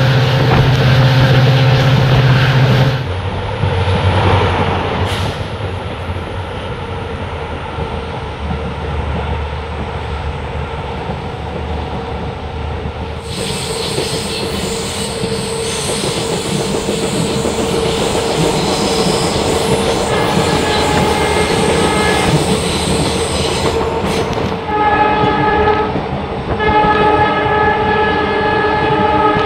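Passenger train running, with steady wheel and track noise heard from an open coach doorway. The EMD WDP4D diesel locomotive at the head of the train sounds its horn, faintly at first about two-thirds of the way through, then in two louder blasts near the end.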